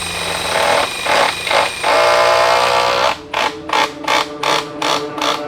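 Cordless power tool motor whining steadily, then run in short, rapid bursts, about four a second, in the last couple of seconds, as when bolts are being driven into the floor frame corners.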